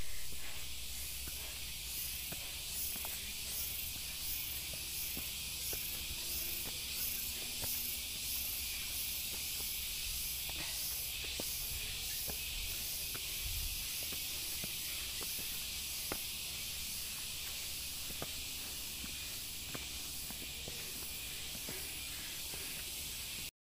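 A steady, high-pitched chorus of rainforest insects, with a faint regular pulsing, drones without a break. Light footsteps on a dirt trail sound faintly under it.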